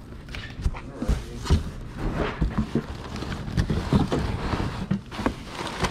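Cardboard box flaps being pulled open and crumpled newspaper packing rustling and crackling, with irregular knocks and scrapes of handling.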